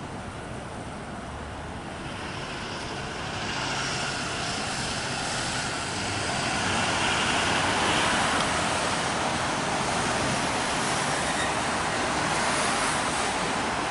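City street traffic noise, a steady rush of passing vehicles that swells from a few seconds in and stays loud.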